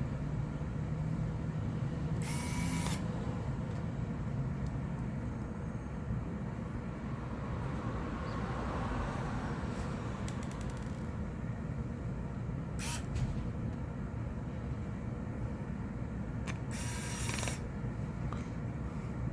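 Small handling noises of phone reassembly: three short scraping or clicking sounds over a steady low hum.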